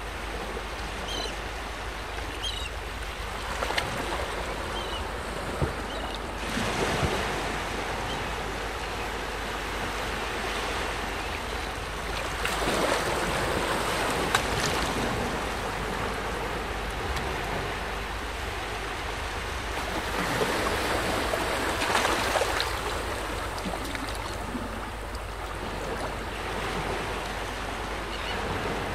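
Small waves lapping at the shoreline in a steady wash that swells and fades every several seconds. A few faint, short, high bird chirps sound in the first few seconds.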